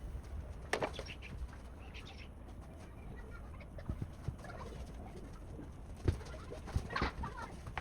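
Birds calling outdoors, with scattered light clicks and knocks over a steady low background rumble.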